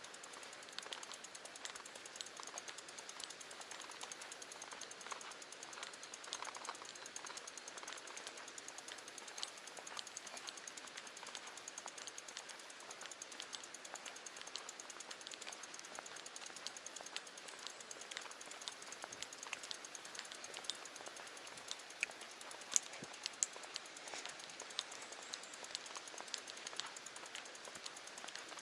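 Road bike being ridden: a faint steady hiss with many small, irregular ticks and clicks, and a few sharper snaps about three-quarters of the way through.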